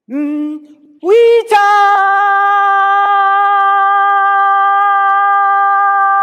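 A woman's unaccompanied voice sounding wordless notes: a short rising note, then about a second in a louder, higher note that dips slightly and is held steady for several seconds.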